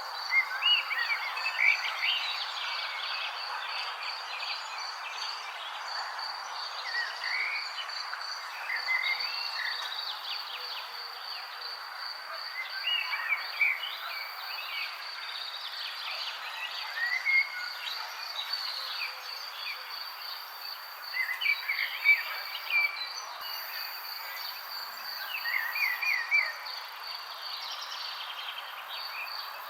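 Songbirds chirping in short scattered bursts over a steady, evenly pulsing high insect trill, against a constant background hiss.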